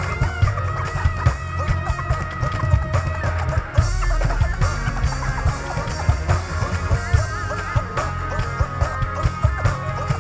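Live band playing an instrumental passage with a steady drum beat and sustained melodic lines over it.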